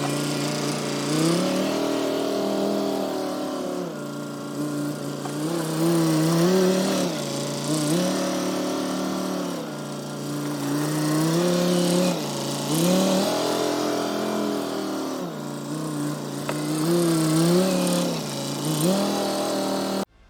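Kubota tractor's diesel engine working under load, revving up and dropping back again and again every few seconds while dirt is spread with the tractor. It cuts off suddenly near the end.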